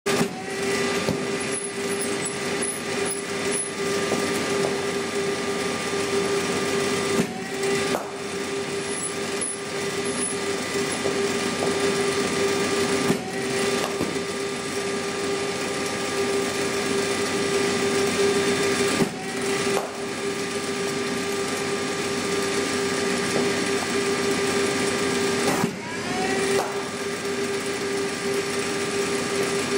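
Cricket bowling machine's electric motor running steadily with a strong hum. It dips briefly about every six seconds, four times, each dip followed by a short rising whine as the motor picks back up after a ball is fired.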